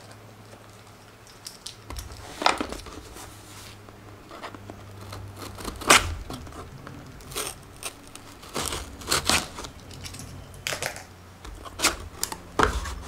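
Cardboard product box being opened by hand: a paper seal sticker is torn and the cardboard is scraped and slid open, in a series of separate sharp rustles and scrapes.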